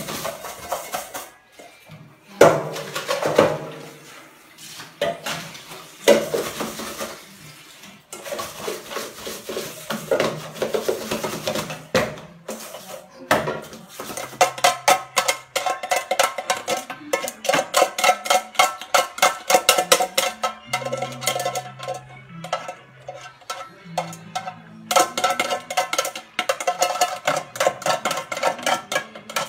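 Dishes and a metal basin clattering and knocking against each other in a sink. Background music with a steady beat comes to the fore in the second half.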